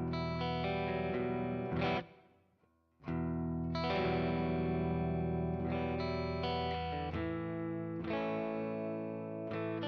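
Electric guitar playing a sustained chordal riff through a Kemper amp profile of a Hiwatt, with light compression and reverb. The playing stops about two seconds in and picks up again a second later.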